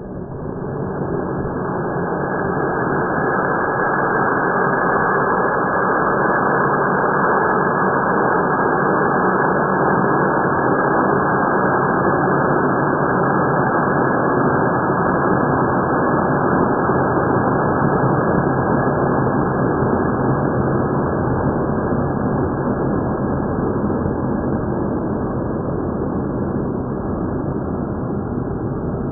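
Nozzleless APCP solid-propellant rocket motor, loaded with a red-flame propellant, burning on a test stand: a loud, steady rushing hiss. It builds over the first two or three seconds as the burn comes up to full strength, then holds, easing slightly near the end.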